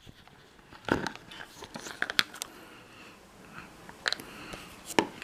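Hollow Kinder milk-chocolate Easter egg shell being broken apart by hand, with a few scattered sharp cracks and snaps of the chocolate.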